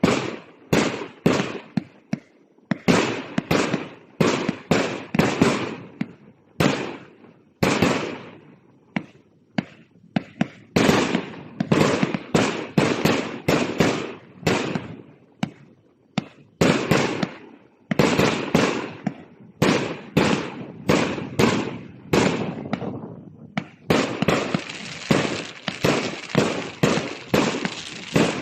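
A 1.2-inch, 200-shot fireworks cake firing: a rapid string of sharp shots, about two to three a second, broken by a few short pauses. In the last few seconds the shots come thicker and almost run together.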